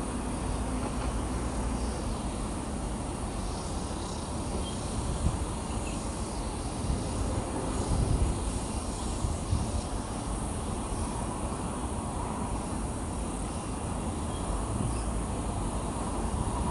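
Outdoor ambience of a steady, high insect drone from wooded hillsides, over a low, uneven rumble.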